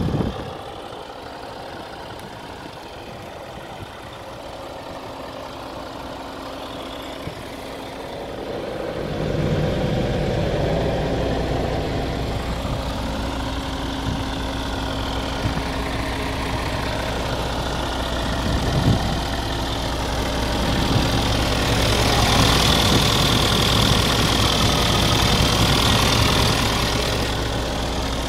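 A heavy truck's diesel engine idling steadily. It grows louder about nine seconds in, and a hiss joins it for a few seconds near the end.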